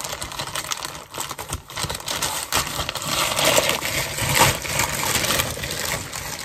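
Packaging rustling and crinkling as a parcel is handled and unwrapped, a dense run of small crackles and rustles that grows busier about halfway through.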